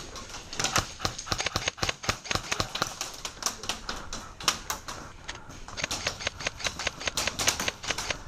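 Airsoft guns firing in an exchange of fire: rapid, irregular sharp clicks and pops, several a second, with short strings of shots.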